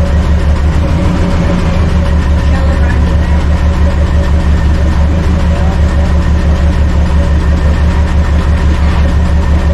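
Farm truck engine idling steadily with an even low pulse, running after a brake repair in which air was bled from the brake system.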